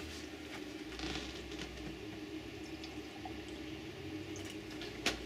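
Distilled water poured from a plastic gallon jug into a small glass jar, a faint trickle that is strongest about a second in. A steady low hum runs underneath, and there is a sharp tap near the end.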